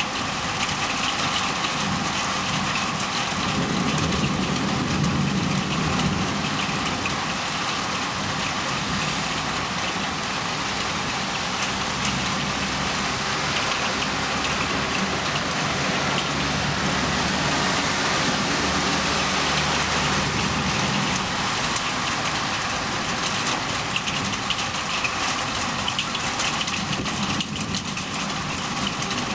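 Heavy downpour in a thunderstorm: a steady hiss of rain. A low steady hum runs underneath from a few seconds in until past the middle.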